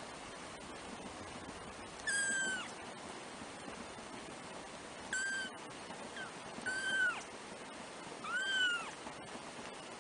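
Three-week-old kittens mewing: four short, high-pitched mews, the first about two seconds in and the rest following every second and a half or so.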